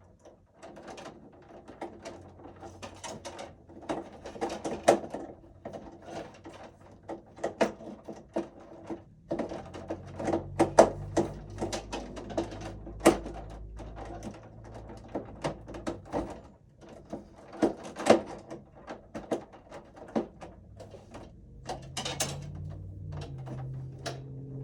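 Irregular clicks, taps and scrapes of a screwdriver and small metal parts as a screw is threaded into place in a breaker panel.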